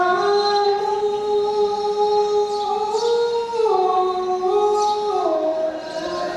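A voice singing a slow melody of long held notes, each lasting a second or more, that step up and down in pitch.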